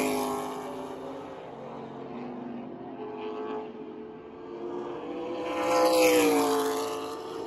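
Late model stock car V8 engines running at speed on a short oval: one car fades away at the start, others carry on more quietly in the distance, and another comes by about six seconds in, its engine pitch dropping as it passes.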